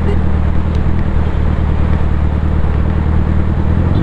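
Suzuki Hayabusa's inline-four engine breathing through twin Racefit exhaust pipes, cruising at a steady speed with an even, unchanging note.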